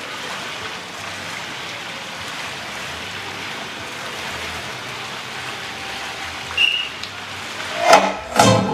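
Steady hiss of outdoor poolside ambience. A short high tone sounds about six and a half seconds in, and guitar-led routine music starts over the loudspeakers near the end.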